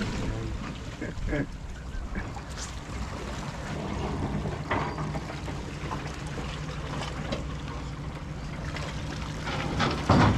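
Wind on the microphone over a steady low hum, with a few short faint knocks.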